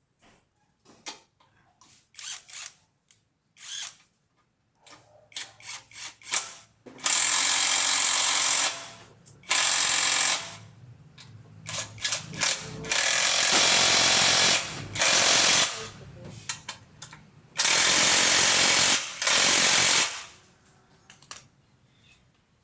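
A power tool running in several loud bursts of one to two seconds each, after a few seconds of light clicks and knocks.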